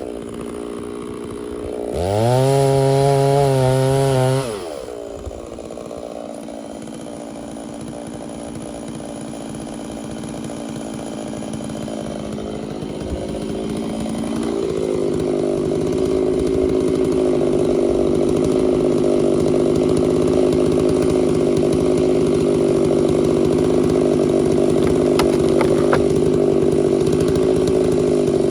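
Small two-stroke chainsaw engine. It drops off high revs, blips the throttle briefly about two seconds in, and idles low. It then throttles up gradually and runs steadily at high speed through the second half.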